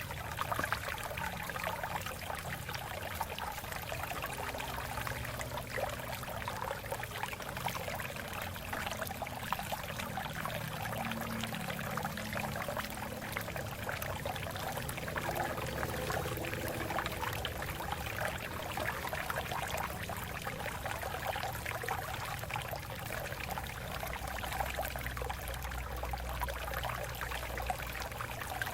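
A stream of water running and splashing over rocks, a steady burble and trickle with a low rumble underneath.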